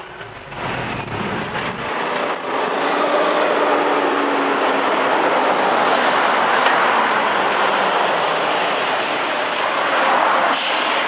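Decorated truck (dekotora) driving out with its engine running, in dense, steady vehicle noise, with a low rumble for the first two seconds.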